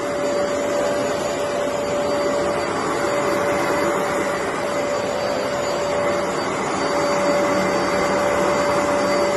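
Shark Navigator Lift-Away upright vacuum cleaner running steadily, a constant motor whine over the rush of airflow.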